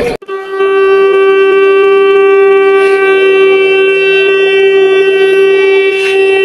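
A single long, steady note on a horn-like wind instrument, rich in overtones, starting abruptly just after the start and held level without a break.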